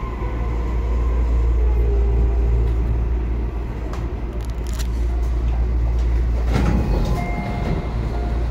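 Tobu Urban Park Line electric train running, heard from inside the passenger car: a steady low rumble of wheels on rail with faint steady motor tones. A short burst of noise about six and a half seconds in.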